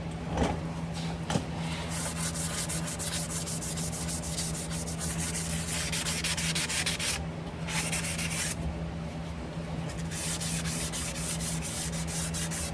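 Fine 500-grit sandpaper rubbed by hand in quick back-and-forth strokes over the gasket mating surface of a truck's PTO opening, cleaning off old gasket residue. The strokes pause briefly twice around the middle, and two knocks come near the start over a steady low hum.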